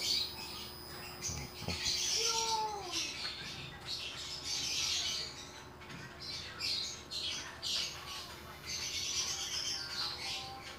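Rustling and scraping of a small cardboard product box being handled and turned over, in short irregular bursts, with a brief falling squeak about two seconds in.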